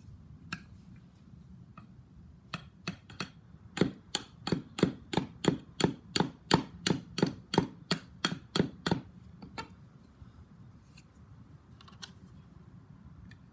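Hatchet shaving wood off the neck of an axe handle held upright on a wooden stump, trimming it to fit the axe head's eye. It makes a quick run of sharp wooden knocks, about three a second, from a couple of seconds in until about two-thirds of the way through.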